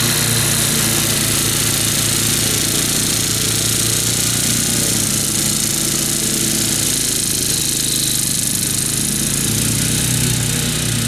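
Wolf-Garten ride-on mower's engine running steadily under load while its deck cuts through tall, wet grass.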